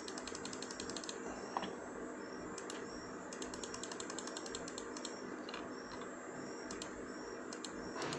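Computer mouse clicking: a rapid run of clicks for about the first second, then scattered single clicks, over a faint steady hum.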